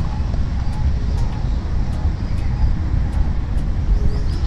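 Outdoor background noise: a steady low rumble, with a few faint high ticks above it.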